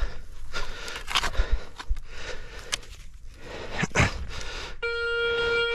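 Spade strokes cutting and scraping into sticky field soil, a series of short knocks and scrapes. Near the end a metal detector sounds a steady beep for about a second over the dug spot, signalling a high-conductivity metal target.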